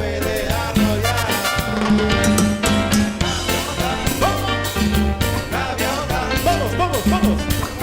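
Live band playing Latin dance music in the salsa style, with bass, drum kit and percussion keeping a steady beat and a lead voice or instrument line gliding up and down over it.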